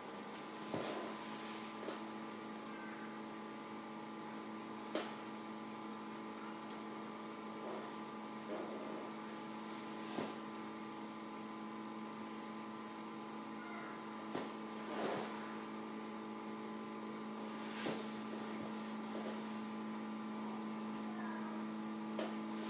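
Magnetic stirrer running with a spinning top on its plate: a steady hum, with a second, higher tone joining about a second in. Light clicks and scrapes sound every few seconds.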